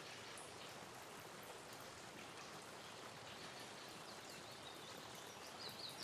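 Faint nature ambience: a steady wash of running water, with faint bird chirps coming in near the end.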